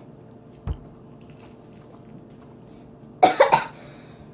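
A girl coughs about three times in quick succession about three seconds in, after a soft low thump under a second in.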